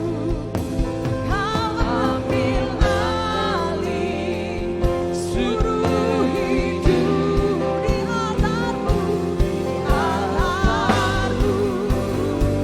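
Live Christian worship music with a band playing and singing that wavers in pitch over a steady beat.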